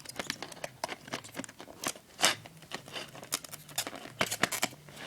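Hands handling a freshly opened iPod touch box and its packaging: a string of small irregular clicks, taps and rustles, with one louder knock about two seconds in.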